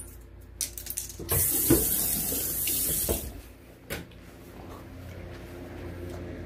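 A brief rush of running water lasting about two seconds, among knocks and bumps from the phone being handled.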